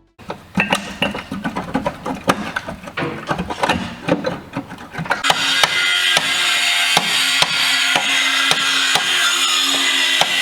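Irregular knocking and scraping on a rusted car body panel, then a power tool starts about five seconds in and runs steadily, working the rust back to clean metal for welding.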